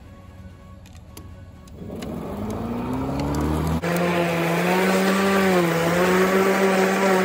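Ryobi battery-powered electric lawn mower's motor spinning up about two seconds in, its whine rising in pitch, then running steadily as the blade cuts long grass, with a slight dip in pitch partway through.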